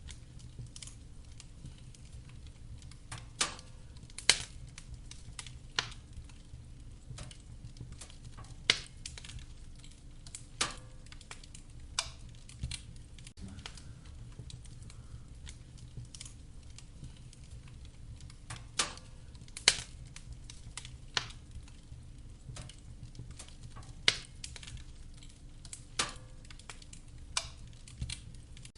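Wood fire crackling in a fireplace: sharp, irregular pops and snaps every second or two, a few of them loud, over a low, steady rumble.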